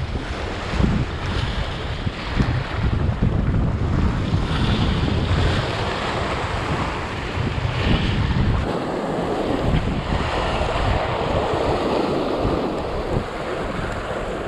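Sea waves breaking and washing over shoreline rocks, with wind buffeting the microphone. The low wind rumble drops away about two-thirds of the way in, leaving the hiss of the surf.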